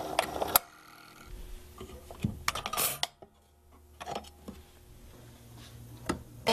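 Thorens disc music box playing a melody that cuts off abruptly about half a second in. Scattered metallic clicks, light knocks and a brief scrape follow as the discs, mechanism and wooden box are handled, with a wooden knock near the end.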